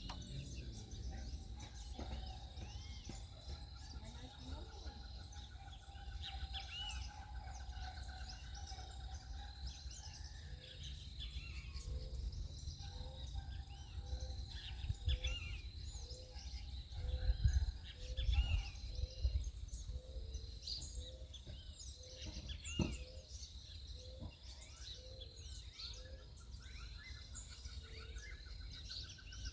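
A mix of backyard birds chirping and calling, many short quick notes overlapping throughout, with a buzzy trill now and then. A soft low note repeats about once a second through the second half. A steady low rumble runs underneath.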